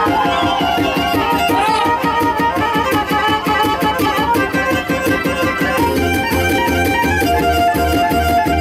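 Black Sea horon dance music with a fast, even rhythm and a high melodic line; a strong low beat comes in about six seconds in.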